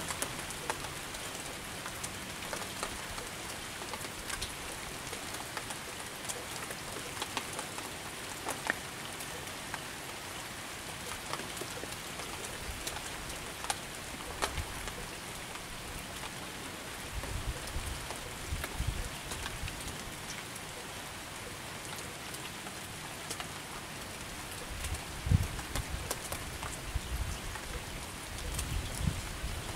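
Steady rain falling, with scattered ticks of drops hitting close by, and a few low rumbles in the second half.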